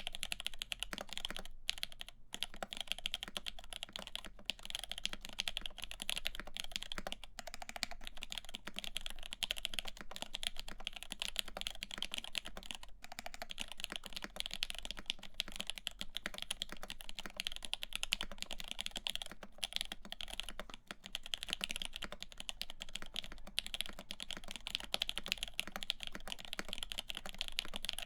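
Steady, fast typing on a CAKE60 mechanical keyboard with lubed Lavender switches, an FR4 plate and GMK keycaps: a dense run of crisp keystroke clicks with a brief pause about two seconds in.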